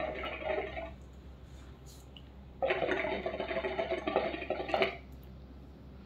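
Water bubbling in the handmade glass base of a stainless-steel Cocoyaya Maharaja hookah as smoke is drawn through the hose: one pull that ends about a second in, then a second, longer pull of about two seconds near the middle.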